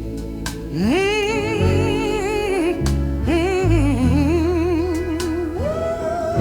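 Gospel-style song: a solo voice sings long held notes with wide vibrato over bass and instrumental backing, sliding up into its first note about a second in and stepping up to a higher note near the end.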